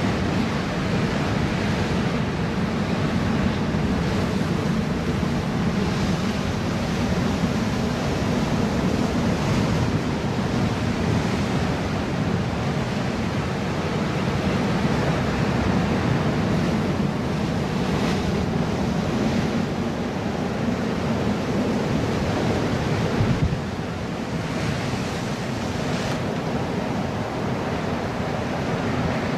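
Ocean surf breaking and washing over a boulder rock wall, with wind buffeting the microphone. The rush eases a little near the end.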